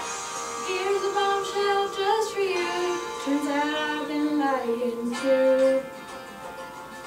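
A woman singing a slow melody that steps down in pitch, over a musical accompaniment; the singing stops about six seconds in.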